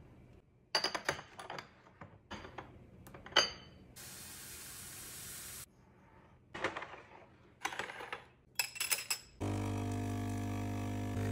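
A teaspoon clinking and tapping against small glass sugar jars in a run of light clinks, with a steady hiss for about a second and a half midway. About nine seconds in, a Smeg espresso machine's pump starts with a loud, steady hum as it brews a double shot.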